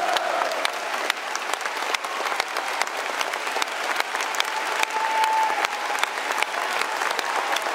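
Stadium crowd of football fans applauding steadily, a dense patter of many hands clapping. A short high note rises above the clapping about five seconds in.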